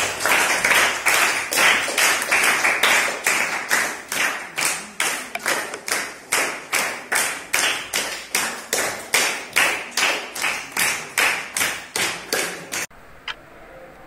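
A group of people clapping hands in unison: a dense clatter at first that settles into steady, rhythmic claps about twice a second, then stops abruptly near the end. A few faint ticks of a wall clock follow.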